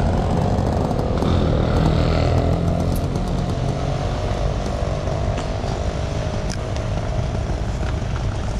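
Street traffic: vehicle engines running close by, a steady low drone with a buzzing engine note mixed in.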